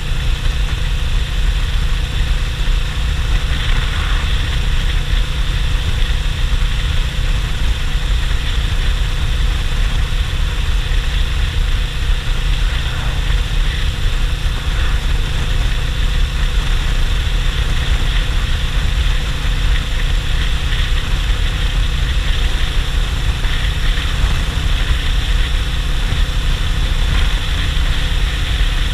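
Suzuki GS500E's air-cooled parallel-twin engine running steadily while the motorcycle cruises on the road, mixed with heavy wind rumble on the microphone.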